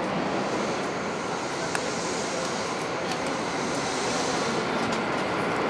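Steady rumbling noise of a train running at a railway station platform. A higher hiss swells for a few seconds in the middle, then fades.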